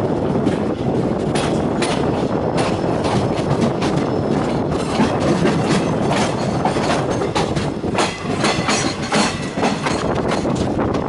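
Passenger train coach wheels clattering over rail joints and points, a rapid irregular run of sharp clicks over a steady running rumble, heard from the open side of a coach as the express pulls out of the station.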